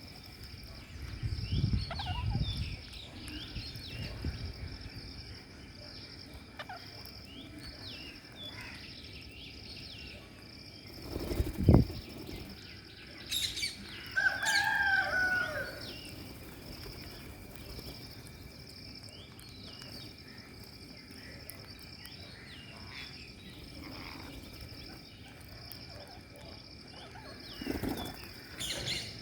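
Rose-ringed parakeets giving many short, high, falling chirps over a steady pulsing high chirp. There is a heavy thump about 11 seconds in and a longer, lower, falling call about 14 seconds in.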